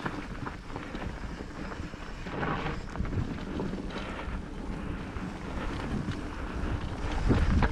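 Wind buffeting the microphone over the rumble and rattle of an electric mountain bike riding a rough trail, louder near the end.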